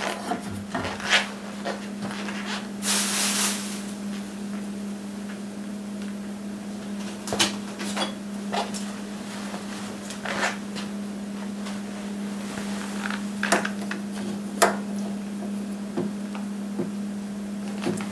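Scattered light clicks and knocks of handling, with a brief rustle about three seconds in, over a steady low hum.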